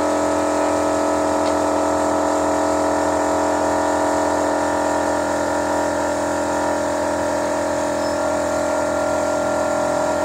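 A motor-driven machine running steadily, a constant hum with several fixed tones and no change in speed.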